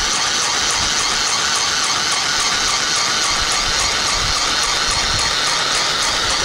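Sewing Genie mini sewing machine running steadily, its small electric motor driving the needle through the fabric.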